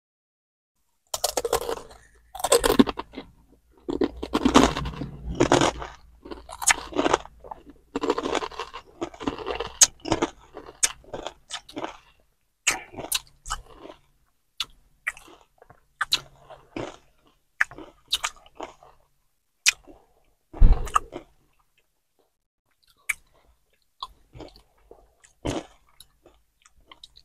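Two people crunching and chewing Takis rolled corn tortilla chips, close to the microphone. The crunching is dense for the first ten seconds or so, then thins to scattered crunches and mouth clicks. One low thump comes about two-thirds of the way through.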